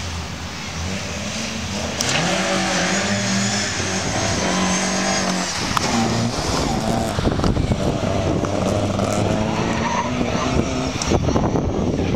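Rally car driven hard past at close range: the engine note climbs in steps from about two seconds in, breaks off as it goes by, then gives way to rough engine and tyre noise as it corners away.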